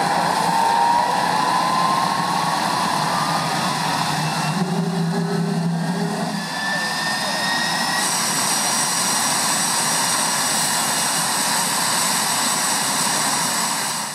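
Jet engine running: a loud, steady rush with a thin turbine whine that climbs slowly in pitch. The sound changes abruptly about five and eight seconds in, after which a higher whine holds steady.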